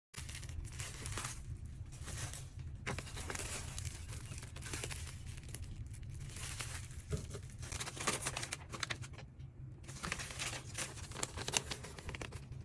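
Packaging crinkling and tearing as it is handled and opened, with many small irregular clicks and rustles.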